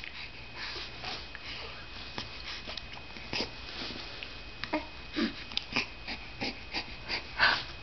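A six-week-old baby's snuffly breathing: short irregular sniffs, huffs and small mouth clicks, with a couple of brief low grunts about five seconds in and a louder huff near the end.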